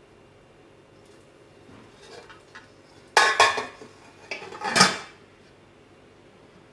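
Black enamelware roasting pan and its lid clanking as the lid is picked up and set onto the pan. A few light clinks come first, then two loud metallic clatters, one just past the middle and the other about a second later.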